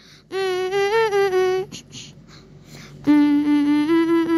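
A child's voice humming a wordless tune in two phrases of held, steady notes, with a pause of over a second between them.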